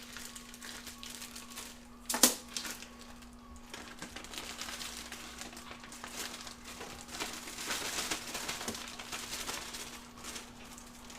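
Wrapping crinkling and rustling as raw chicken carcass is packed up for the freezer, with one sharp knock about two seconds in, over a faint steady hum.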